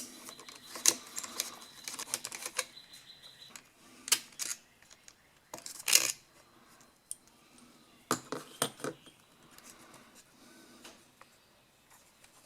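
Irregular clicks and clatters of hand tools and small parts as the carburetor is taken off a four-stroke string trimmer, with a few louder knocks about halfway through and a little later.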